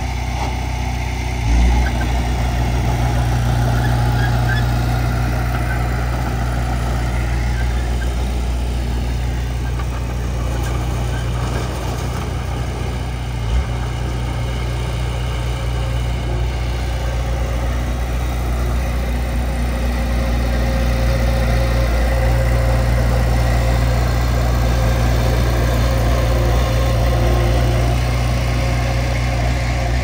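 Diesel engine of heavy earthmoving equipment running steadily, with two short knocks, one about a second and a half in and one near the middle.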